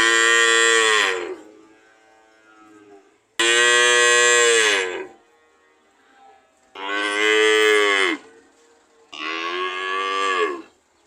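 Cattle mooing: four loud calls, each about a second and a half long, with the pitch dropping at the end of each.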